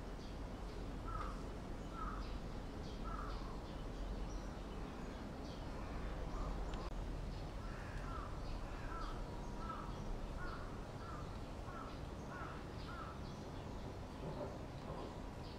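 A bird calling over steady outdoor background noise: a series of short repeated notes, about one a second at first, quickening to about two a second from midway.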